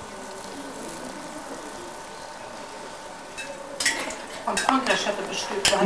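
A faint steady hiss, then from about four seconds in, cutlery clinking and scraping against plates and bowls as several people eat.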